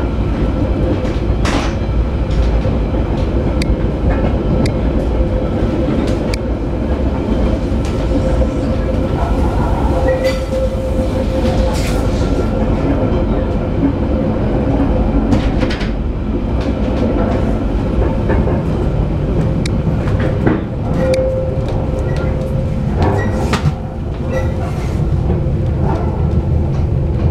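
Ex-London Underground tube carriage running along the track, heard from inside the car: a steady rumble from the wheels, a steady hum, and many scattered sharp clicks and rattles.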